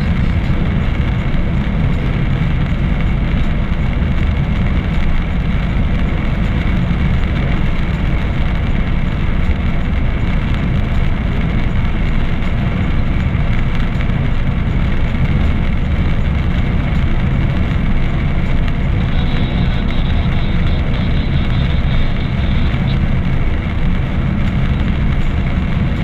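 Steady engine and tyre noise of a car driving along a damp road, heard from inside the cabin.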